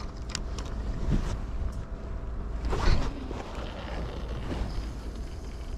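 Steady low rumble of wind and sea noise on the microphone, with faint clicks and rustling of clothing and fishing gear being handled, and a louder rustle about three seconds in.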